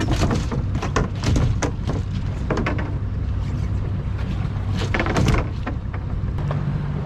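A motorboat's engine idling at a steady low hum, with a string of sharp knocks in the first second and a half and again around five seconds in.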